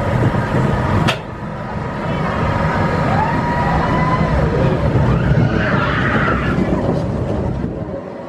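Zierer kiddie roller coaster train running along its steel track with a steady low rumble of wheels. A sharp click comes about a second in, after which the rumble is a little quieter.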